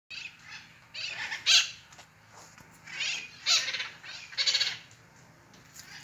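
Mitred conures giving loud, harsh screeching calls, several in a row about a second apart.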